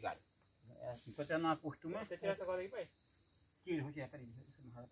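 Indistinct voices talking in short bursts over a steady, high-pitched insect drone.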